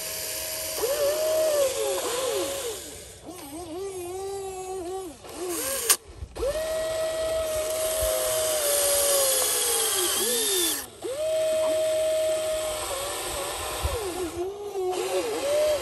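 Huina radio-controlled excavator's electric motors whining as the boom, arm and bucket move while it digs, the pitch gliding up and down as each motion starts, changes and stops. The whine breaks off briefly about six and eleven seconds in, with a sharp click near the first break.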